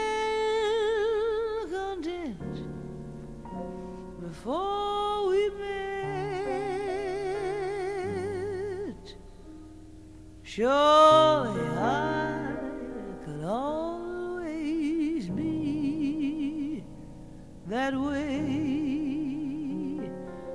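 Music: a solo voice singing long held notes with heavy vibrato, in phrases with short pauses, over an instrumental accompaniment.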